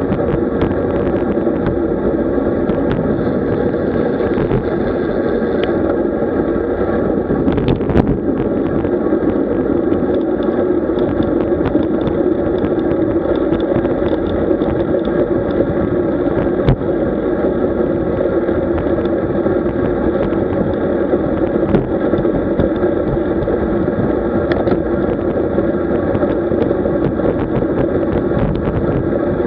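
Steady rush of wind and road noise from a road bike riding along, with a couple of sharp knocks, one about eight seconds in and another about halfway through.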